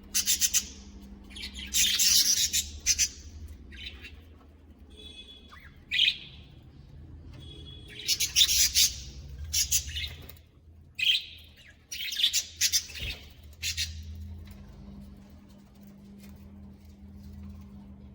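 A colony of budgerigars chirping and chattering in loud bursts, quieter for the last few seconds. A steady low hum runs underneath.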